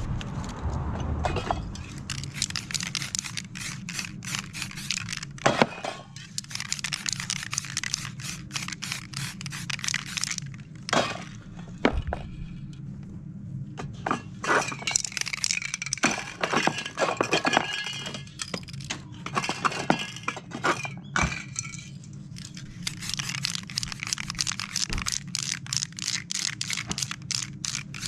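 Crumpled paper crackling and crinkling as it is handled and pressed onto a wet spray-painted canvas to texture it. It comes in irregular spells of sharp crackles with short pauses, over a steady low hum.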